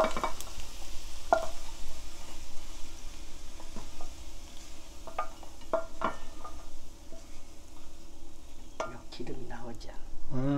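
A wooden spatula scraping and knocking against a nonstick frying pan as pieces of pan-fried sea eel are pushed out onto a plate, with scattered taps over a faint sizzle of hot oil in the pan.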